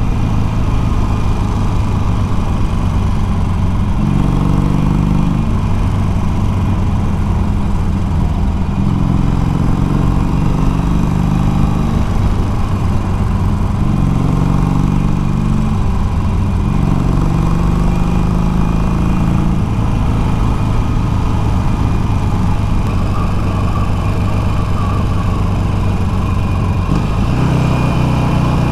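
Harley-Davidson Iron 883's air-cooled V-twin engine running steadily on the move, its pitch rising and falling every few seconds as the revs change.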